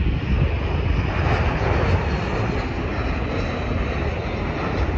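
Jet airliner's turbofan engines on final approach with gear down, a loud steady rushing drone with a deep rumble, swelling about a second in and easing off after.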